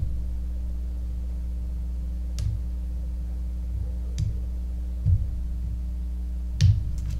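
A lock pick and tension wrench working inside a Master Pro Series padlock: a handful of scattered light clicks and taps as the hook probes the pins, over a steady low hum.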